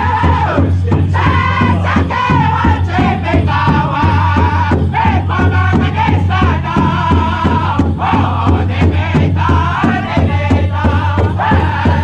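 Powwow drum group singing a chicken dance song: several male voices singing high over a large powwow drum struck in unison with padded sticks in a steady, fast beat.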